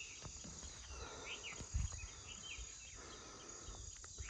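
Faint outdoor ambience: a steady high insect drone with short chirps over it, and a low rumble with a single soft knock just under two seconds in.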